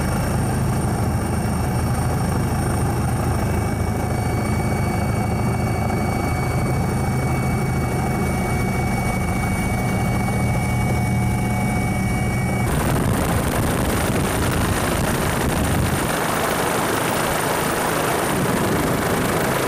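Helicopter engine and rotor noise: a steady drone with thin high whining tones. About twelve and a half seconds in it switches abruptly to a rougher, noisier rushing sound.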